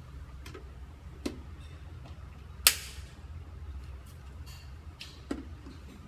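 Hard plastic clicks and knocks as a clear dust container is fitted onto a handheld vacuum cleaner's body and its buckles are snapped shut. One sharp snap about two and a half seconds in is the loudest, with lighter knocks before and after, over a steady low hum.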